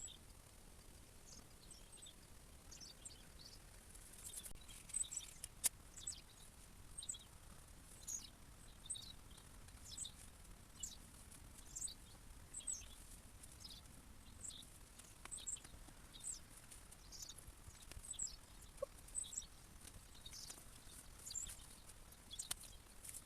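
Faint birdsong: many short, high chirps repeating throughout, with a single sharp click about six seconds in.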